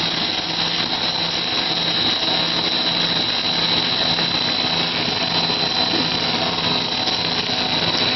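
Corn stick extruder running steadily under load, its electric drive motor and screw giving a constant mechanical drone with a high steady whine on top.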